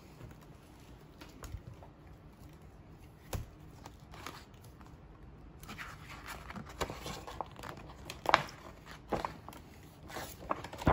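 A hardcover picture book being handled: a few knocks as it is moved, then, about six seconds in, the cover swung open and the pages turned, with paper rustling and several sharp crisp flicks.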